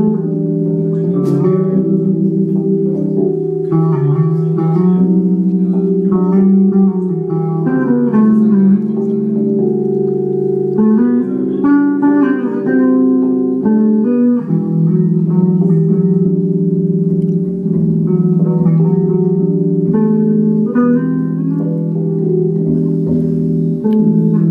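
Two electric bass guitars jamming through amplifiers: held low notes underneath, with plucked higher notes and chords played over them.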